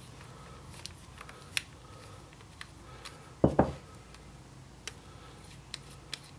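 Faint small clicks and ticks of an Allen key and the regulator's adjustment screw as the screw is backed out of the bottom of a paintball marker's regulator, with two dull thumps in quick succession a little over three seconds in.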